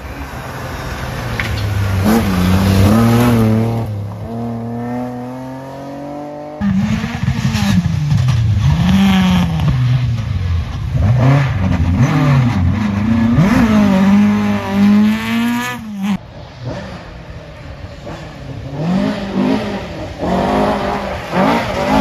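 Rally car engines at hard throttle, several cars one after another: the engine note climbs and drops again and again with gear changes and lifts. The sound changes suddenly about a third of the way in and again past the middle.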